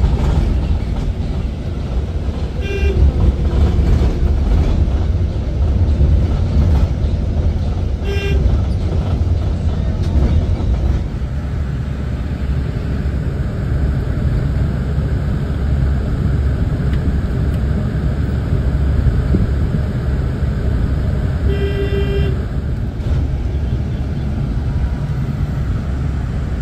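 Steady low rumble of road and tyre noise inside a moving electric bus. A vehicle horn toots briefly about three seconds in and again about eight seconds in, then gives a longer honk near the end.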